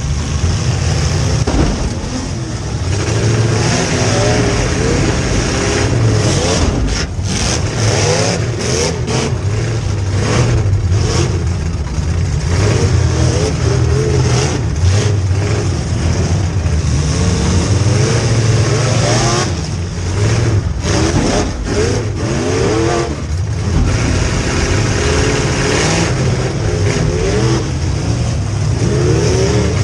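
Rear-mounted V8 of a demolition derby car running and revving up and down repeatedly, heard loud from inside the stripped car.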